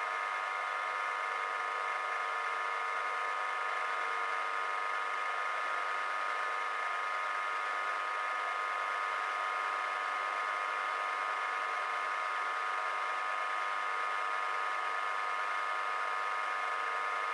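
Milling machine running with a steady whine from its motor and spindle drive, while a small two-flute end mill is fed down into a clamped metal plate.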